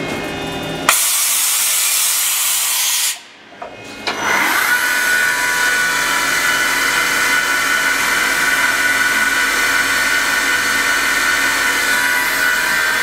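Wasino WMC-3 vertical machining center: a loud, even hiss for about two seconds that cuts off, then from about four seconds in the CAT 40 spindle runs with a steady high whine.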